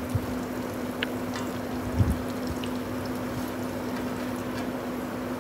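Beetroot samosas deep-frying in hot oil in a karahi: a steady sizzle and bubbling over a low hum, with two low knocks near the start and about two seconds in.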